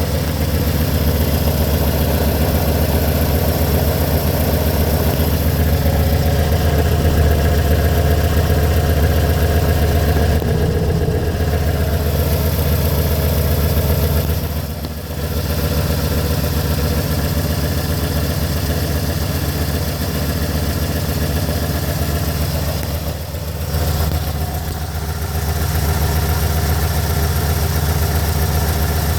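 1982 Mazda B2000's four-cylinder engine idling steadily with its repaired EGR valve, no longer hanging open at idle. The sound drops briefly twice, about halfway through and again about three-quarters of the way through.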